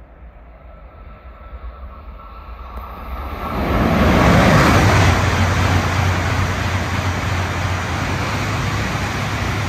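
Tohoku Shinkansen train (the coupled Yamabiko/Tsubasa set) passing through a station at high speed without stopping. A rush of air and rolling noise builds, surges about three and a half seconds in, and stays loud with a low hum as the long train streams past.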